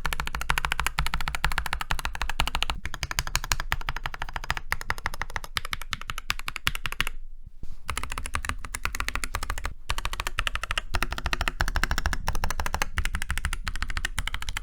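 Fast, continuous typing on a mechanical keyboard with Durock Ice King tactile switches, the keys clacking, with a brief pause about seven seconds in.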